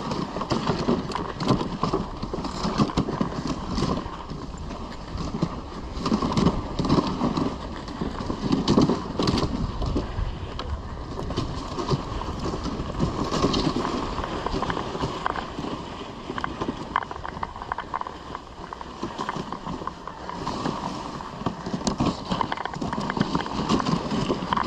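Risdon Euro Spring dog sled running over a snowy trail behind two dogs: runners scraping and hissing on the snow, with knocks and rattles from the sled and the dogs' footfalls.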